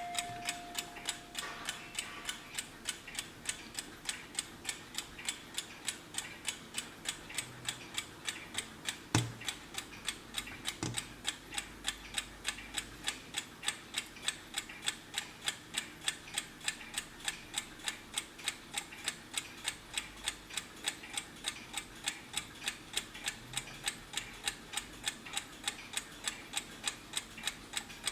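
Wehrle three-in-one alarm clock ticking quickly and evenly, with a bell tone from the clock dying away in the first two seconds. A knock about nine seconds in and a softer one two seconds later.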